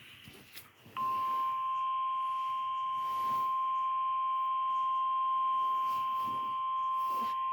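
Emergency Alert System attention signal for a tornado warning: the National Weather Service's single steady 1050 Hz warning alarm tone, starting abruptly about a second in and holding unbroken. It signals that a warning broadcast is about to be read.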